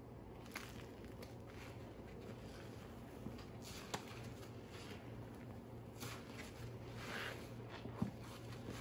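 Faint scattered clicks and soft rustling over a low steady hum. The sharpest click comes about eight seconds in.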